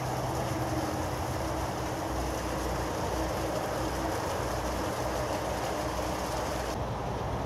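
Steady mechanical rumble with a low hum underneath, like a distant engine.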